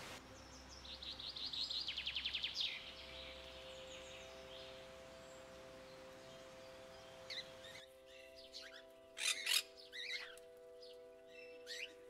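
Bird calls over a soft sustained music chord: a rapid high trill of about ten notes a second near the start, then loud harsh macaw squawks, several in the second half.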